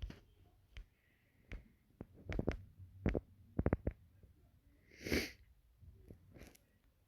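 Handling noises from a packaged set of ratcheting wrenches: scattered small clicks and knocks, with a quick run of several clicks about three and a half seconds in. A short breathy sniff-like burst comes about five seconds in.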